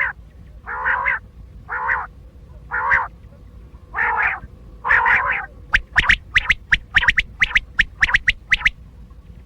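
Caged quail (batair) calling: a run of about six harsh, buzzy notes roughly once a second, then from about six seconds in a quick series of sharp, high notes several a second.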